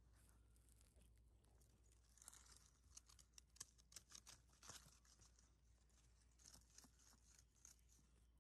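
Faint crackling and rustling of a cat's paws on grass and dry leaves close to the microphone, a quick run of small crackles in the middle and a few more near the end, against a very quiet background.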